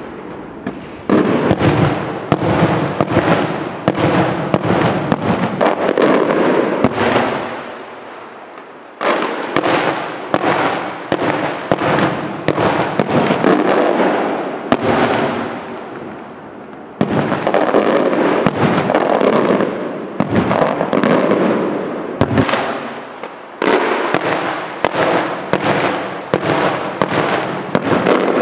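Fireworks going off in long strings of rapid bangs, in four salvos that each start abruptly and die away over several seconds.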